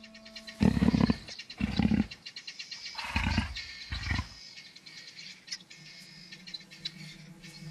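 Young leopard giving four short, rough, deep growling calls, each about half a second long, spread over the first four and a half seconds.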